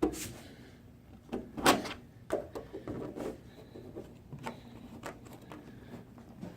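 Knocks and clicks of a contour gauge being handled and pressed against the edge of a car door, the loudest about two seconds in, with softer taps after.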